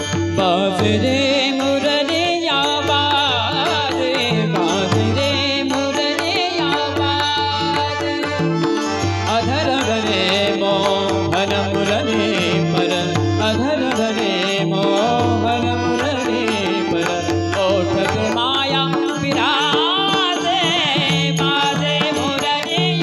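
Indian devotional music: an ornamented, wavering melody line over tabla and a steady sustained accompaniment, with no sung words.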